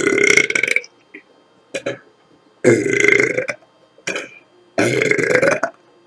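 A woman belching on purpose: three long, loud belches about two seconds apart, each lasting nearly a second, with short quieter sounds between them.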